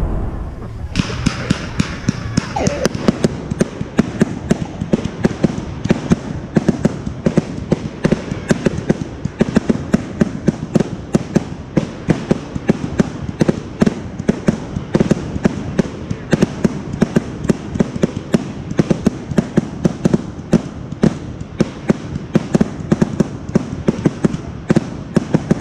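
Fireworks display: a rapid, unbroken run of bangs and crackles, several a second, over a steady hiss, starting about a second in.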